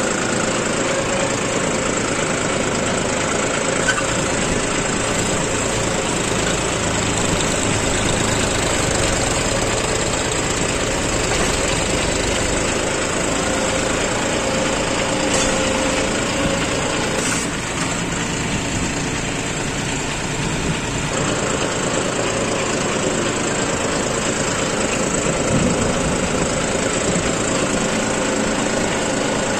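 Tractor diesel engine running steadily while pulling a plough through the soil, easing off briefly for a few seconds past the middle.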